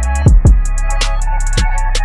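Background music with a beat: deep bass-drum hits that drop in pitch, quick high ticks between them, and held synth tones underneath.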